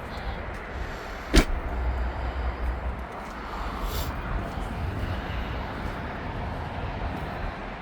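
A car door shutting with one sharp slam about a second and a half in, followed by a couple of lighter clicks over a steady low rumble.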